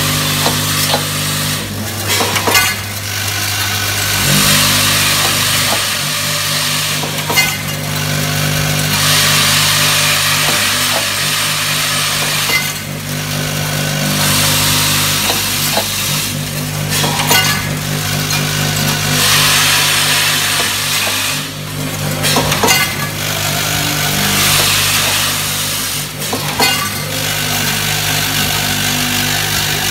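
Automatic screw-packing machine running: its vibratory bowl feeders hum steadily while the screws in them rattle. About every five seconds there is a sharp click followed by a few seconds of hissing clatter.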